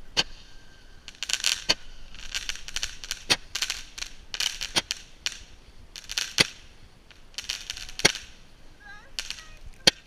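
Crackling firework candle firing shot after shot: each a burst of hissing crackle ending in a sharp bang, about seven in all, roughly every one and a half seconds.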